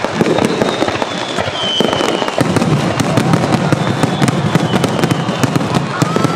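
Aerial fireworks going off in a continuous barrage: dense crackling pops over deep booming, with a few thin whistles sliding down in pitch.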